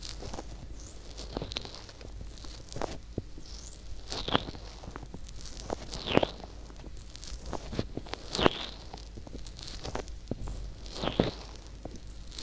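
Fingertips rubbing and pressing on the silicone ear of a binaural ear microphone, heard close up. Slow strokes come about every two seconds, each a swish falling in pitch that ends in a soft press, with small crackles between them.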